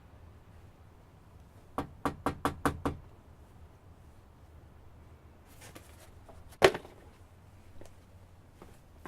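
Knocking on a door: six quick knocks in a row, then one single louder knock or thump about four seconds later.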